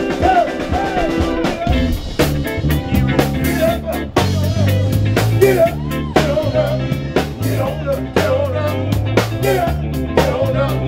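Blues band music: a drum kit keeping a steady beat under a moving bass line and guitar.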